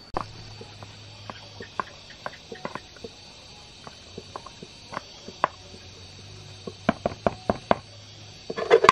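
Irregular light knocks and clicks, with a quick run of them about seven seconds in and a louder clatter near the end.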